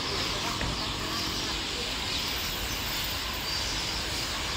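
Steady outdoor street ambience: a low traffic rumble with a high hiss and faint background voices.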